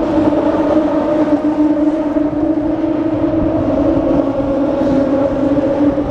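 Boat engine running with a steady, even drone.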